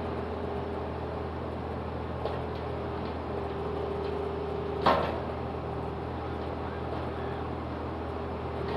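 Diesel engine of a piece of digging equipment running steadily, with a sharp clunk about five seconds in and a fainter knock a little past two seconds.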